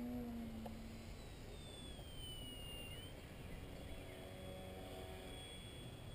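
Faint whine of a radio-controlled 3D Sunday model plane's motor and propeller flying overhead, its pitch falling about two seconds in as it passes and then holding steady, over a low rumble of wind on the microphone.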